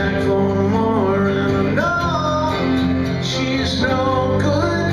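Live soft-pop song: strummed acoustic guitar and Kurzweil electronic keyboard, with a male voice singing the melody.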